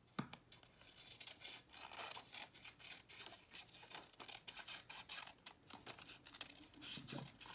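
Scissors snipping through paper in a run of short, irregular cuts.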